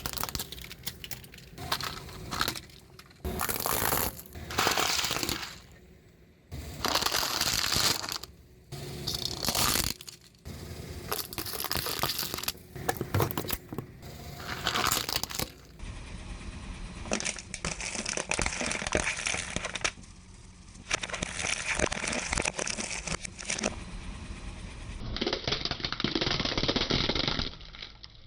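Car tyre rolling over and crushing glass marbles: repeated bursts of crunching and crackling, each a second or a few long, with short pauses between.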